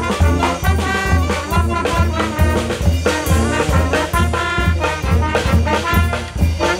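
Small wind band with euphonium, saxophone and clarinet playing an upbeat swing-style tune. The horns carry the melody over a steady bass beat of about two a second.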